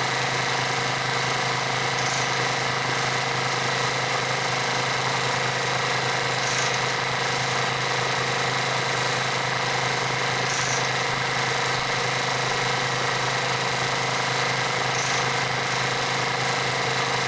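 Home-movie film projector running: a steady mechanical whirring hum that holds the same level throughout.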